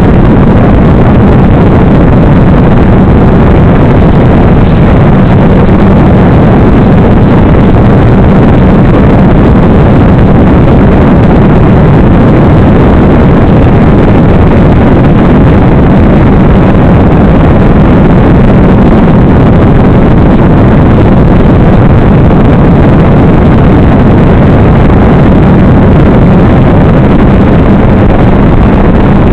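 Loud, steady rushing of air over the onboard camera microphone of a radio-controlled model plane in flight, with a low hum underneath.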